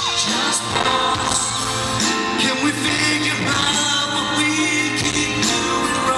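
Live male lead vocal singing into a handheld microphone over a full band and backing track, in a loud, distorted audience recording.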